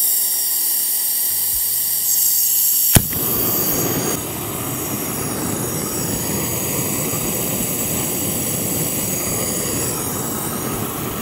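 Handheld propane torch (Su-VGun on a blue propane cylinder) hissing with a high whistle as the gas is opened. A sharp click comes about three seconds in as it lights, and then its blue flame burns with a steady rush while it heats a stainless steel tankard.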